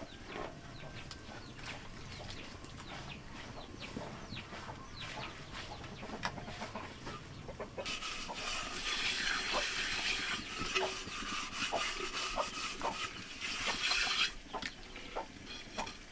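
Chickens clucking in short, repeated calls. From about 8 to 14 seconds a steady hiss rises over them, then stops suddenly.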